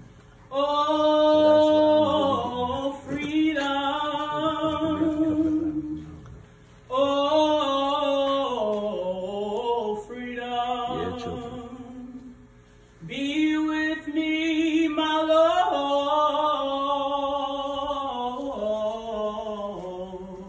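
Unaccompanied singing in a slow, chant-like style: three long phrases of held notes that slide between pitches, with short breaths between them.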